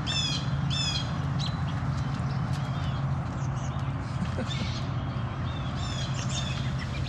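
Short, harsh animal calls repeated in quick pairs in the first second and again around six seconds in, over a steady low hum.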